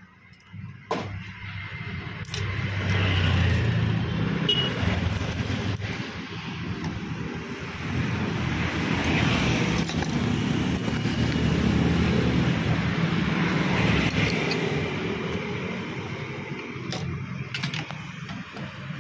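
Road traffic going past close by: vehicle engine noise that swells and fades several times, with a few light clinks of a spoon and knife against a bowl.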